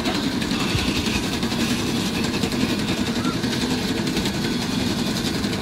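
A steady engine-like drone running without a break, with indistinct voices behind it.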